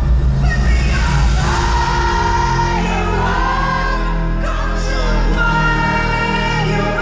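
Live pop music in an indoor arena: a woman sings a held, sliding melody over a band with a heavy bass, heard through the venue's PA.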